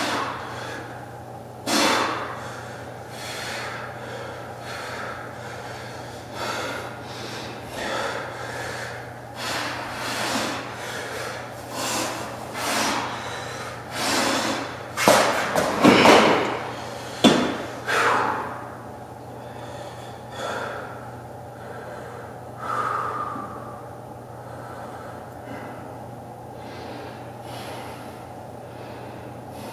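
A man breathing hard through a set of bench dips, with a sharp exhale about once a second that grows loudest around the middle of the set, then only a few fainter breaths as he rests.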